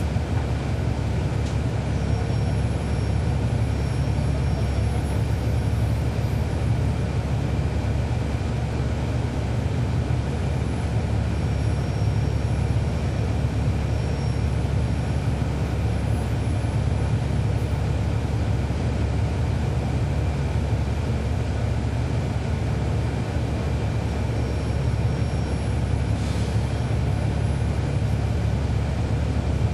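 Cabin sound aboard a 2012 NABI 416.15 transit bus: its Cummins ISL9 inline-six diesel engine running with a steady low rumble and a faint steady high whine.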